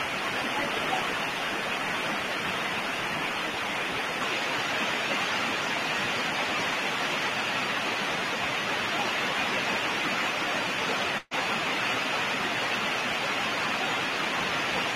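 Steady hiss of noise with no clear tone or rhythm. It cuts out briefly about eleven seconds in, then resumes.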